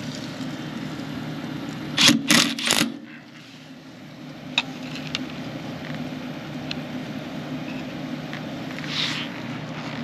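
Mitsubishi mini-split heat pump outdoor unit running steadily in heating mode on high, a low hum of compressor and fan. About two seconds in there are three short, loud bursts of noise, with a couple of faint clicks later.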